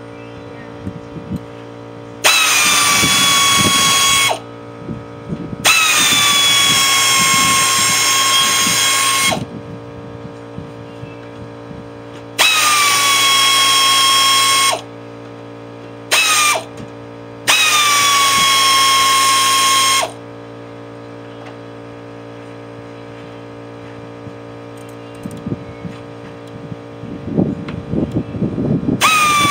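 Power tool motor run in bursts of two to four seconds, about five times, each time whining slightly lower at the start and then holding a steady pitch over a wide rasping noise. It starts up once more at the very end. Light knocks and clatter of metal parts come in the pauses.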